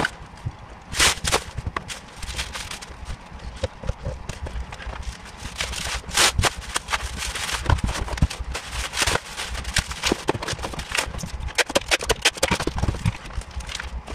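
Packing noises: plastic bubble wrap rustling and crinkling as it is pulled from a roll and handled, with irregular clicks and knocks of things being moved about.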